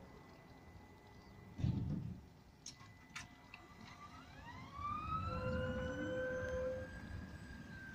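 Tatra T6A2-SF tram moving off with an electric whine that rises in pitch as it accelerates and then holds steady, over a low rumble of wheels on the rails. There is a short thump about two seconds in.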